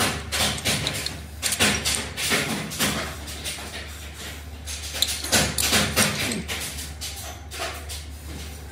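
Cast metal motorcycle brake shoes clinking and clattering against one another as they are handled and set down on a heap, in irregular knocks, over a steady low hum.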